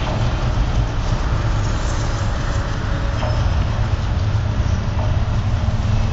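A loud, steady low rumble with a rushing noise over it, like a train running along its track, with a few faint ticks.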